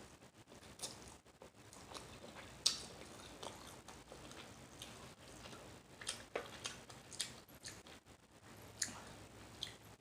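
Faint, close-up mouth sounds of a person chewing rice noodles with open-mouthed smacking: irregular wet clicks and smacks.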